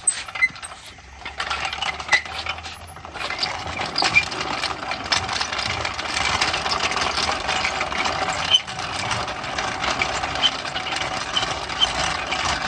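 A steady mechanical noise running continuously, with many small sharp clicks and knocks throughout; it starts about a second in.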